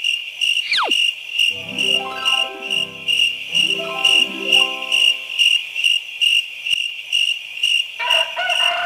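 Cricket chirping used as a comedy sound effect: a high, steady chirp pulsing about twice a second, cutting in suddenly. A falling whistle sounds near the start, and two short runs of falling notes come about two and four seconds in.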